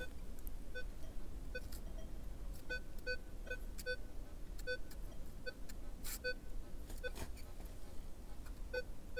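Metal detector giving a string of short, low beeps, one or two a second, as its coil is swept back and forth over a small gold jewellery target buried about 10 cm deep: a clean, repeatable signal on the target. A few soft knocks are heard between the beeps.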